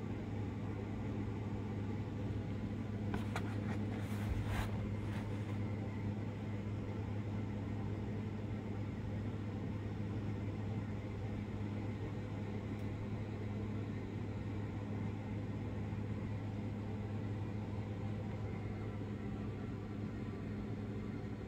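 A steady low hum runs throughout. A few short clicks and crackles come about three to five seconds in as the cardboard toy box is handled.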